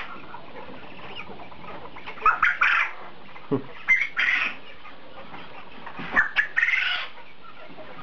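Quail in a cage calling: several short, loud, high-pitched calls, coming a second or two apart.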